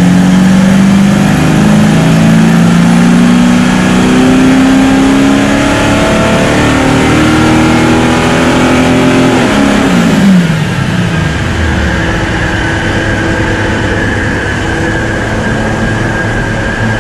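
Audi SQ5's 3.0-litre twin-turbo V6 diesel at full throttle on a chassis dyno, its pitch climbing steadily for about nine seconds without a shift. About ten seconds in the throttle closes and the revs drop quickly, leaving a lower steady running sound with a high whine.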